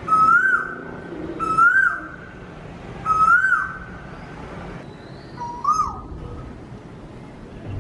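Asian koel (the black Indian cuckoo) calling: four loud single whistled notes, each rising then dropping, spaced about one and a half seconds apart, the last one slightly lower after a longer pause, over a steady background hiss.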